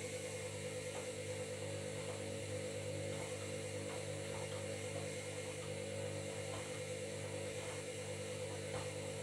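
Washing machine drum motor running at a steady speed, a steady hum with faint irregular clicks from the turning drum.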